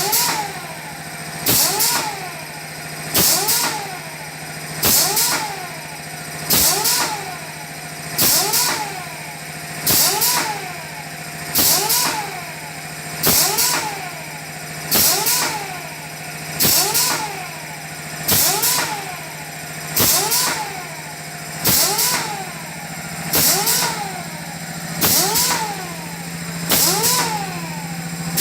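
Automatic liquid filling machine cycling about once every 1.7 seconds. Each cycle brings a short hiss and a whine that rises and falls, over a steady low hum.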